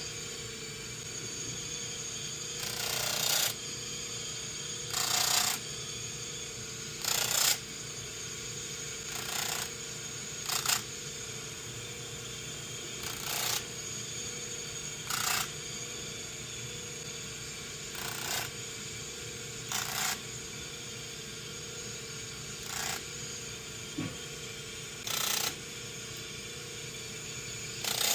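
A 240-grit buffing wheel charged with buffing compound runs with a steady motor hum while a 1911 hammer is pressed against it in short touches about every two seconds, each touch a brief rasping hiss as the bobbed hammer's end is smoothed to a round profile.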